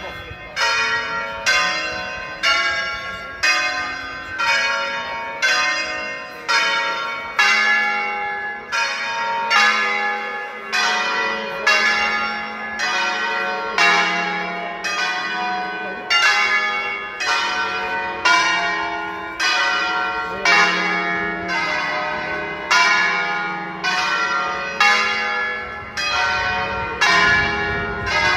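Ring of ten church bells tuned in D-flat major, rung by hand in the Veronese system: the bells strike one after another in a steady, even sequence of a little more than one stroke a second, changing pitch from stroke to stroke, each bell ringing on over the next.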